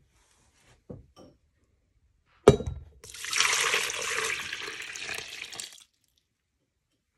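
Distilled water poured from a jug into a slow cooker of thick potassium soap paste, splashing steadily for about three seconds. A sharp knock comes just before the pour.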